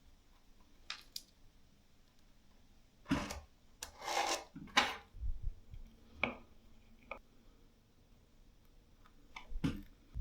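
Scattered clicks, knocks and rubbing from tools and parts being handled, a cluster of louder knocks about three to five seconds in.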